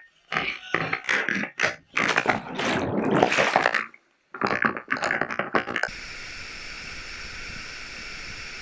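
Cliff jump into a waterfall pool, heard through an action camera: irregular bursts of wind and splashing water, then churning and bubbling as the camera goes under. About six seconds in it gives way to the steady rush of a waterfall.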